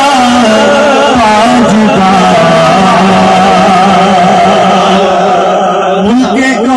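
A man's voice singing a naat into a microphone, drawing out long, wavering melismatic notes, with a step up in pitch near the end.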